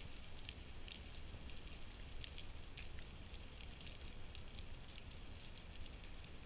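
Faint underwater crackle of scattered sharp clicks, a few each second, typical of snapping shrimp on a reef, over a low steady rumble.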